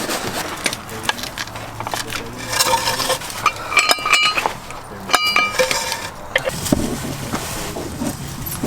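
Metal parts and hand tools clinking and knocking during work on a car, with two short ringing metallic clinks about four and five seconds in.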